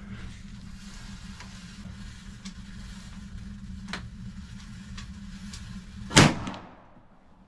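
A single shot from an AirForce Texan .457 pre-charged pneumatic big-bore air rifle about six seconds in. It is a loud, sharp report that dies away within about half a second, heard over a steady low hum.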